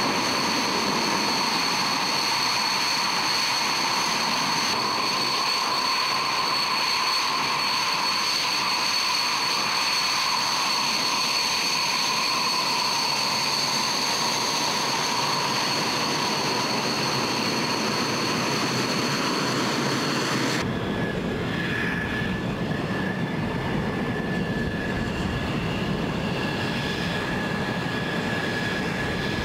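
Dassault Mirage 2000's single SNECMA M53 jet engine running at taxi power: a steady high-pitched whine over a loud rushing noise. About two-thirds of the way through, the whine shifts abruptly to a single lower tone and a deeper rumble comes in.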